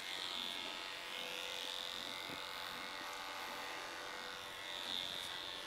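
Liveryman Nova horse clippers running with a steady high-pitched whine as the blades are drawn down a pony's leg, blending (thinning out) the coat.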